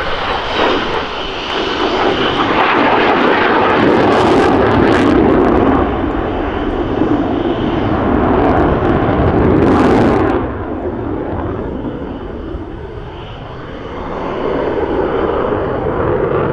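Jet noise of a single-engine F-16 Fighting Falcon flying overhead, a loud continuous roar. It swells and then drops away sharply about ten seconds in, and builds again near the end as the jet turns back.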